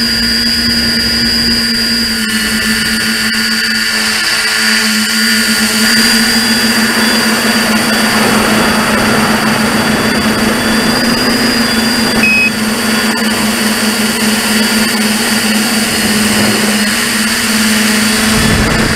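RCExplorer Tricopter V4's electric motors and propellers whining steadily in flight, heard from the camera on the craft, with a rush of propeller wash that grows stronger through the middle.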